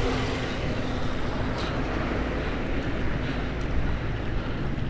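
Steady wind rush over a helmet-mounted microphone while riding, with vehicle and road noise underneath.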